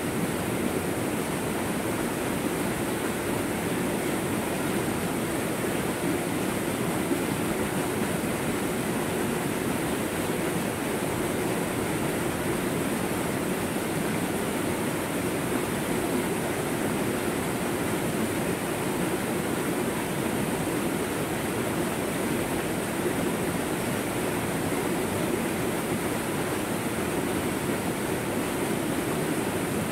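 A small waterfall on a fast, swollen stream pouring over boulders: a steady, unbroken rush of water.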